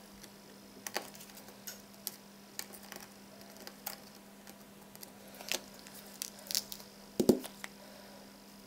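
Scattered light clicks and taps of a small precision screwdriver backing tiny screws out of a smartphone's plastic back frame, with a louder knock near the end. A faint steady hum runs underneath.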